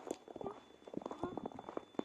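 Footsteps walking on frozen ground, a quick run of short knocks, over a faint, steady high-pitched whine of unknown origin.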